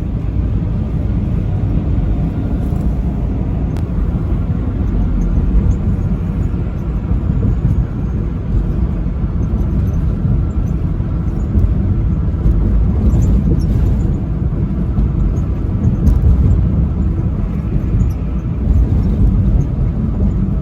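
Steady low rumble of a truck driving along the interstate: engine and road noise, with no horn blast.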